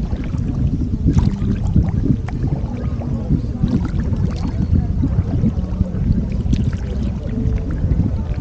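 Kayak paddle strokes, the double blades dipping and splashing in the river water at irregular intervals, over a steady low rumble.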